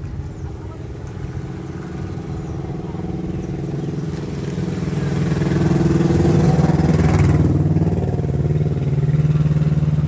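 An engine running with a steady hum, growing louder over about the first six seconds and then holding steady.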